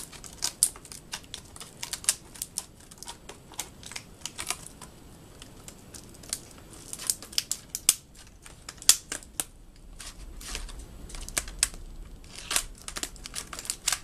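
Scissors snipping at a stubborn plastic RAM retail package, with irregular clicks and crinkling crackles as the plastic is cut and bent.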